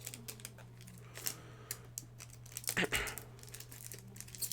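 Crinkling of a plastic Pokémon booster pack wrapper as the pack is handled and the cards come out, with many small crackles and clicks and a louder rustle about three seconds in.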